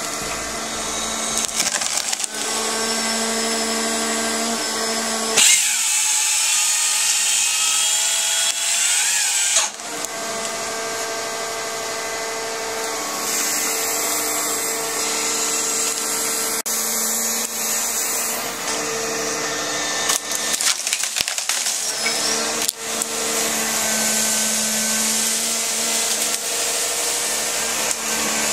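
Felling excavator's engine and hydraulics running under load as its Woodcracker felling head grips and cuts through a pine trunk. There is a louder hissing cut from about five to ten seconds in, and a few sharp wood cracks later on.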